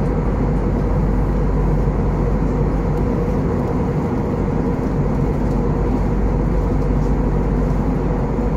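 Steady jet-engine and airflow noise inside the cabin of an Airbus A321neo, a constant low rumble and hiss with a faint hum.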